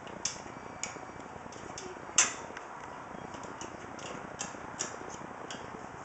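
A hand screwdriver driving long screws through a case fan's mounting holes into a computer case: scattered light clicks of the tip and screws against metal, with one sharper click a little over two seconds in.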